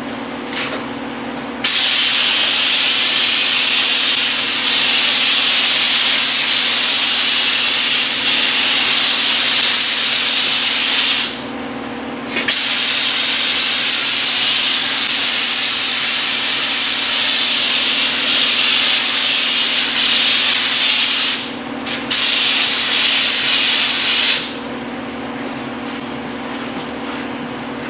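Gravity-feed spray gun hissing as it sprays primer, in three passes: two of about nine seconds each and a short one of about two seconds, each starting and cutting off abruptly. A steady low hum runs underneath throughout.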